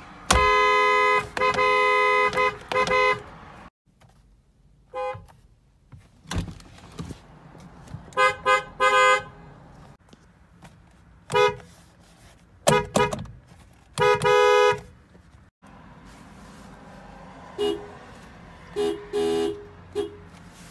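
Car horns honking, one horn after another in short separate clips. There is a long blast broken into several honks at the start, then short toots and double toots. The last few are fainter and lower in pitch, over road noise.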